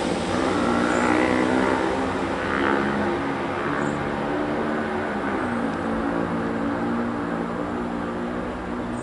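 A Class 150 Sprinter diesel multiple unit's underfloor diesel engines running under power as the train pulls away, with rail and wheel noise, slowly fading as it draws off.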